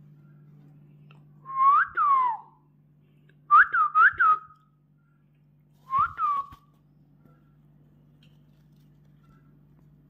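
Whistling in three short bursts of clear, rising-and-falling notes: two notes about a second and a half in, three quick ones about three and a half seconds in, and two more around six seconds in.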